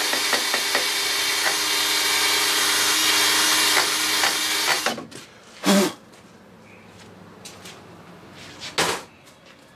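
Cordless drill spinning a wire wheel against a rusty top nut on an outboard powerhead, scouring off the rust; it stops suddenly about five seconds in. Two short knocks follow.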